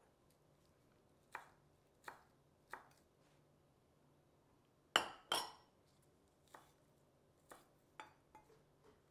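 Kitchen knife coarsely chopping basil on a wooden board: a few slow, spaced knocks, with two louder, ringing knocks about five seconds in and several lighter ones after.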